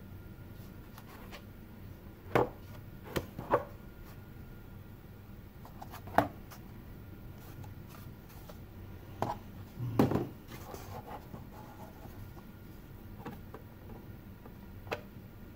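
Hands handling plastic car sun visors from a 2007 Honda CR-V on a tabletop: scattered knocks and clicks, about eight in all, the loudest about two, six and ten seconds in, with brief rubbing around the ten-second one.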